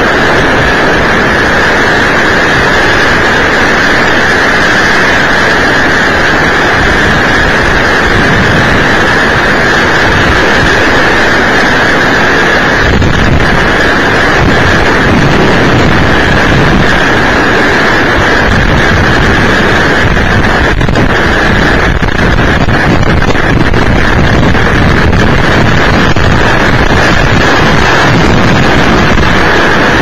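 Violent storm wind from a small tornado and its straight-line winds buffeting a security camera's microphone: a loud, unbroken rushing noise with a steady high tone running through it.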